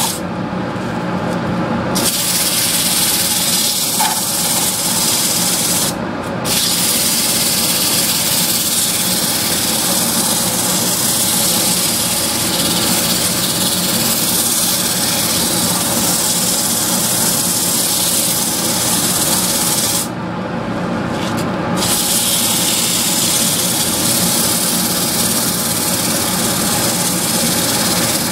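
Lathe running with a steady hiss over its motor hum. The hiss drops out three times: for about two seconds at the start, for a moment about six seconds in, and for a second or two about twenty seconds in.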